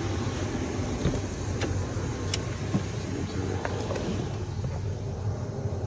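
A motor running with a steady low hum, with a few faint clicks over it.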